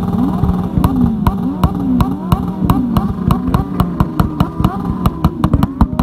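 Several motorcycle engines held at high revs and bouncing off the rev limiter, the pitch sweeping up and down over and over. Sharp exhaust pops and bangs punctuate the engine noise, coming faster and thicker in the last two seconds as flames shoot out of an exhaust.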